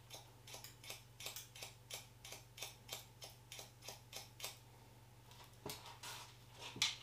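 Hairdressing scissors snipping in quick, even strokes, about three a second, as they point cut into the ends of a section of hair; the snipping stops about four and a half seconds in, followed by a few scattered clicks near the end.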